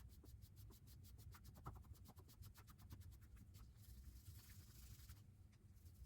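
Faint scratching with rapid light clicks over a low steady hum, with a short rush of hiss about four seconds in.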